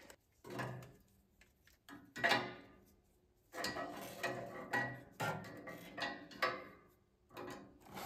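Irregular knocks, clinks and rattles of a wood-burning stove and its fuel being handled as it is made ready for lighting, in several separate bursts over the few seconds.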